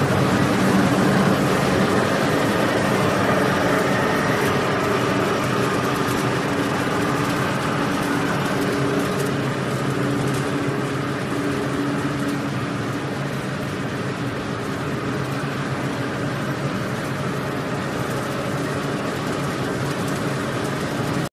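Soap-making production machinery running: a steady motor hum with several held tones under a constant mechanical noise.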